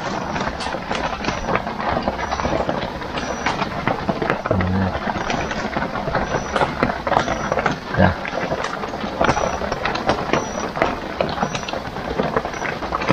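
Light drizzle pattering steadily as a dense crackle of tiny drops, with a short high chirp repeating about once a second.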